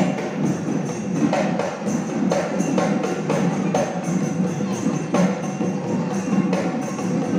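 Assamese Bihu dhol, a two-headed barrel drum, played live in a driving rhythm of sharp strokes over a steady drum sound.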